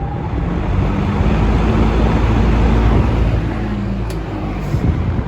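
Vintage 1970s Champion all-metal-bladed box fan running on its high speed setting: a loud rush of air over a low motor hum, with a short click about four seconds in.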